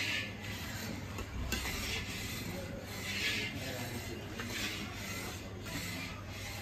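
Long metal spatula scraping around the bottom of a large metal kadhai of boiling milk in repeated strokes, stirring milk as it is reduced to mawa (khoa).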